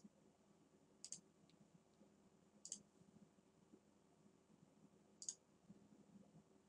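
Computer mouse buttons clicking three times, a second or two apart, each click a quick double tick of press and release, against near silence.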